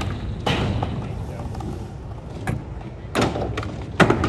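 Skateboard wheels rolling on concrete, with a few sharp clacks and thuds of boards hitting the ground; the loudest comes about four seconds in.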